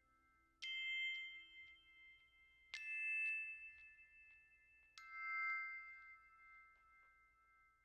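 Three bell-like chime notes struck one after another, about two seconds apart, each left to ring and fade.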